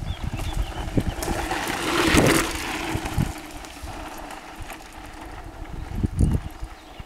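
Mountain bike rolling past on a gravel track: the rushing crunch of its tyres on loose gravel swells to a peak about two seconds in, then fades. Irregular low thumps run underneath, with a cluster of them about six seconds in.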